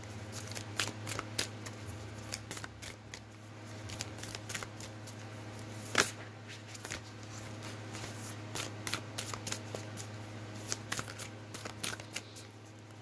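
A deck of oracle cards being shuffled by hand: a quick run of soft card flicks and clicks, with one sharper snap about six seconds in. A steady low hum sits underneath.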